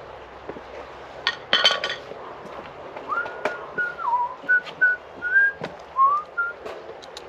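A person whistling a short tune of held notes with small slides between them, over a few sharp clicks and knocks and a brief clatter of hand tools on wood.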